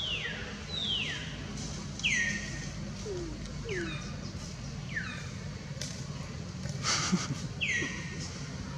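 A bird repeating a sharp downward-sliding whistle about seven times, each under half a second, over a steady low background hum. A short noisy rustle comes about seven seconds in.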